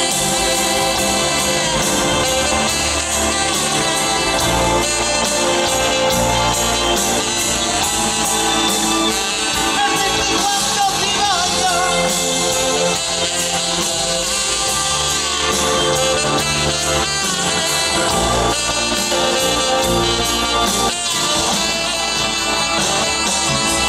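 Live band music with a saxophone solo carrying the melody over guitar, bass and drums.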